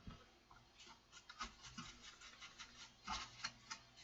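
Light, irregular scratchy strokes of a small cleaning brush rubbing dust off the amplifier's circuit board and chassis, with a slightly louder cluster of strokes about three seconds in.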